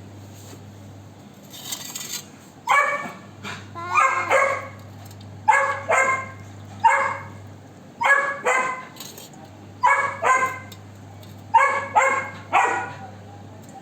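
Golden retriever puppy barking again and again, mostly in quick pairs, starting a few seconds in.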